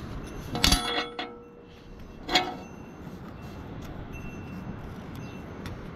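Two sharp metallic clinks of hand tools or parts knocking against metal as work begins on the tiller's transmission oil. The first comes less than a second in and rings briefly; the second follows about a second and a half later. A steady low outdoor background noise runs underneath.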